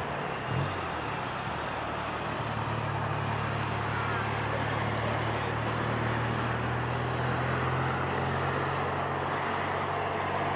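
Airbus A380-861's four Engine Alliance GP7270 turbofans at takeoff thrust during the takeoff roll and lift-off: a steady jet noise over a low steady drone, growing a little louder after about two seconds. A brief low thump just after the start.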